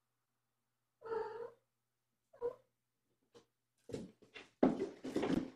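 A cat meows about a second in, then gives a shorter second call. From about four seconds in, a quick run of thumps and scuffles follows as the cats scamper and jump about the floor and cat tree.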